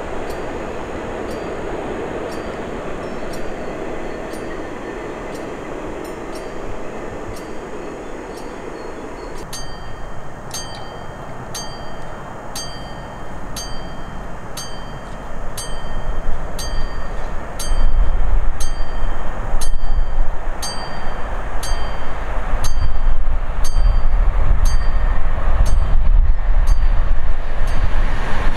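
A train approaching and passing close by, growing much louder in the second half with a deep rumble. Through it a bell-like ding repeats about twice a second.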